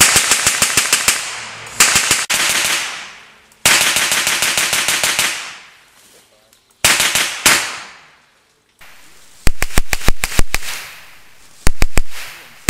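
Bren light machine gun, converted to fire on gas, shooting short bursts of automatic fire at about ten rounds a second. There are about six bursts with short breaks between them, and the last two bursts have sharper, deeper single cracks.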